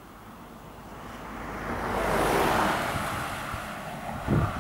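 A road vehicle passing close by: a swell of tyre and engine noise that builds to a peak about halfway through and then fades. Near the end a brief gust of wind hits the microphone.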